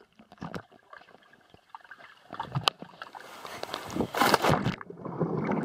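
Pool water sloshing and splashing around a camera held underwater, muffled at first with small clicks. It grows louder, with heavy splashing as the camera comes up through the surface about four seconds in.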